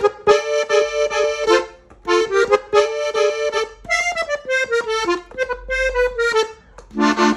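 Hohner diatonic button accordion in F playing a short melodic ornament on the treble buttons. Two phrases of held notes with quick repeated presses are followed by a faster run of single notes stepping downward. A fuller chord with bass notes comes in near the end.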